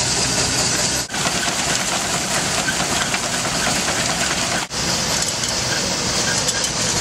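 Steady engine-type machinery running, with faint regular ticking; the sound cuts out briefly twice, about a second in and again near five seconds.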